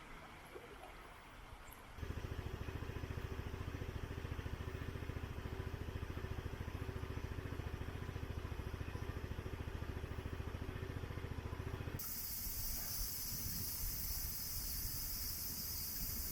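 Spring-fed stream water running high, a steady rush heavy in the low end that gets louder with an abrupt change about two seconds in. About twelve seconds in it changes again to lighter water sound under a steady high-pitched insect drone.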